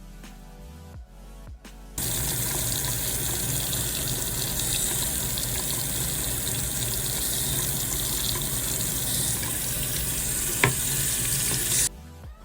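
Tap water running steadily into a sink. It starts abruptly about two seconds in and cuts off sharply near the end, with a single knock just before it stops.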